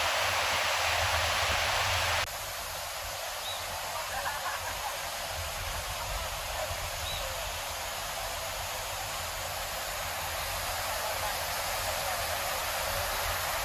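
Rushing water of river rapids, a loud steady rush that drops suddenly to a quieter rush about two seconds in, then grows slowly louder toward the end.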